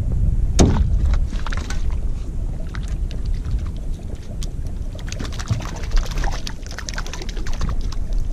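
Steady wind rumble on the microphone and water slapping against the side of a small boat, with a sharp knock about half a second in. Near the end comes splashing from a hooked fish being reeled to the surface beside the hull.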